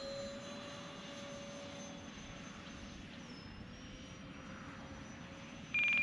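The twin 64 mm electric ducted fans of an E-flite A-10 RC jet whine steadily in flight. The whine is loudest at the start and its pitch shifts a little midway. Near the end comes a short, loud electronic beep.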